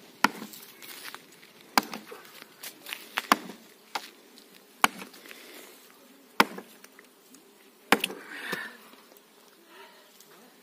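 Axe chopping into the trunk of a standing tree: about seven sharp blows, roughly one every second and a half, stopping about eight seconds in.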